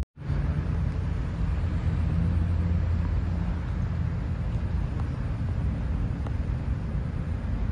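Steady low outdoor rumble of city ambience, with no distinct event standing out.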